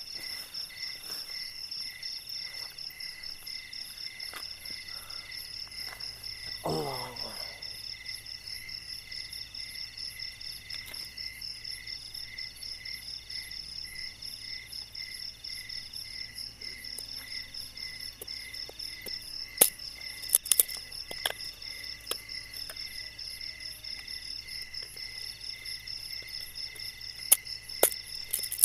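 Night insect chorus: crickets chirping steadily in an even, pulsing rhythm. Several sharp clicks and knocks come about twenty seconds in and again near the end, from sticks being handled at a small campfire pit.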